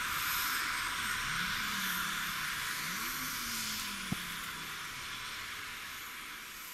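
C-130J Super Hercules' four turboprop engines running on the ground: a steady rushing hiss of propellers and turbines that gradually fades. A single sharp click comes about four seconds in.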